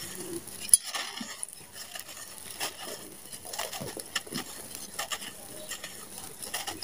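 Dry, gritty sand-cement mix with small stones crumbling in the hands and pouring back onto the pile: an irregular grainy patter of falling grit and pebbles, with one sharper click near the start.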